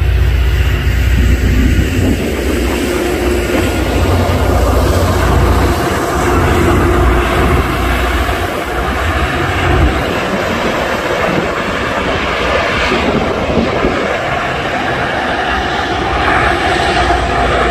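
Loram rail grinder train passing at close range, its rotating grinding stones working the rail head with a loud, continuous grinding noise over the low rumble of the train. The rumble is heaviest in the first half.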